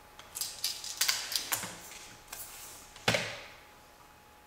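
Light clicks and taps of a tape measure and pencil being handled on a plywood board while a measurement is marked, with one sharper knock about three seconds in.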